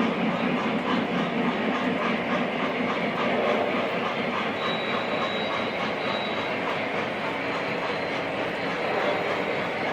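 O gauge model train running on the layout's track: a steady running noise with a faint rhythmic clicking, and a faint high whine that comes in about halfway through.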